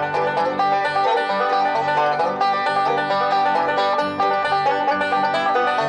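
Bluegrass band playing an instrumental break between sung verses, with fast banjo picking out front over guitar and bass.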